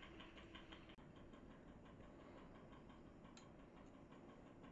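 Near silence: room tone with faint, rapid ticking.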